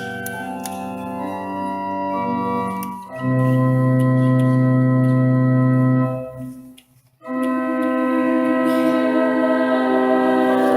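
Organ playing long held chords. The chord changes about three seconds in, then the sound cuts out briefly near seven seconds before a new chord comes in.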